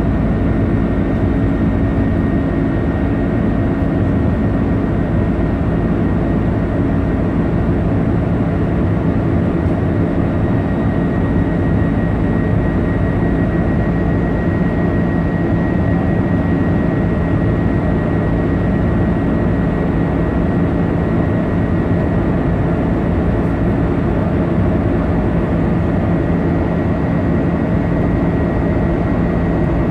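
Steady drone of a jet airliner in flight, heard inside the passenger cabin: engine and airflow noise with a few steady low hums and a faint high whine.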